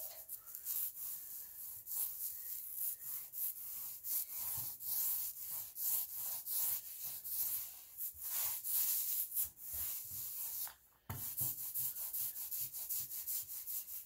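Small paint roller rolled back and forth over rough-sawn wooden boards, a rasping rub with each stroke, with a brief pause near the end.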